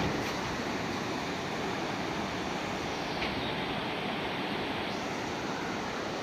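Rushing whitewater of the Parvati River tumbling over rocks in rapids: a steady rush.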